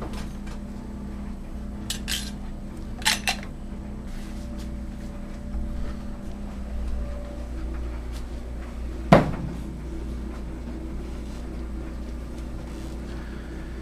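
Handling of the check valve and other plumbing parts: a few light clicks and clacks and one sharper knock about nine seconds in, over a steady low hum.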